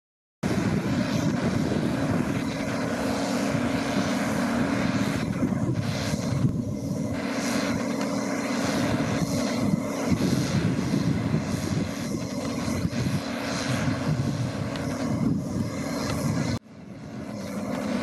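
Case International Axial-Flow 1660 combine harvester running steadily under load, its engine and threshing machinery giving an even, continuous drone as it unloads barley. The sound breaks off abruptly about sixteen and a half seconds in and fades back up.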